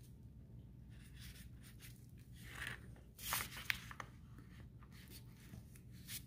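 Faint rustling and scraping of gloved hands and butcher paper as a bamboo skewer is worked through raw duck skin to close the stuffed cavity. The loudest scrapes come about three seconds in, with one sharp click.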